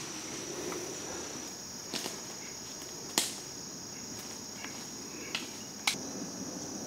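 Steady high-pitched chorus of insects, with four sharp clicks or snaps scattered through it, the loudest about three seconds in.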